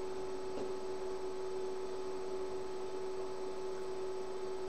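Steady electrical hum: one constant mid-pitched tone with fainter higher tones over a low hiss, unchanging throughout.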